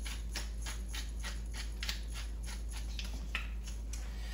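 Pepper mill being twisted to grind pepper in quick, even crunching strokes, about four a second, stopping shortly before the end.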